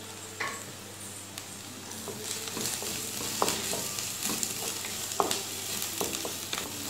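Chopped onion, ginger and green chilli sizzling in oil in a non-stick frying pan over a raised gas flame. From about two seconds in, a wooden spatula stirs and scrapes through them, with scattered light clicks, and the sizzle grows louder.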